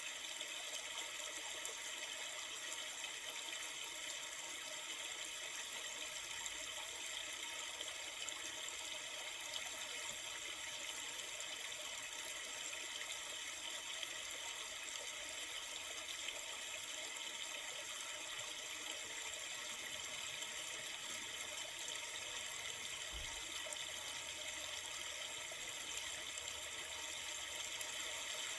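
Flowing river water: a steady, unbroken rush of running water.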